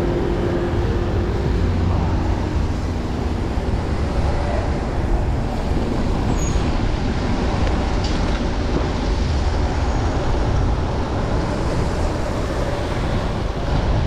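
Steady city traffic and road noise heard from a bicycle riding through wet streets in the rain, heaviest in the deep low end, with no distinct single event.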